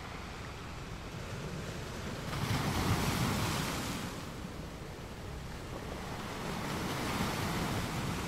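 Ocean surf: waves washing in as a steady hiss that swells about two seconds in and again near the end.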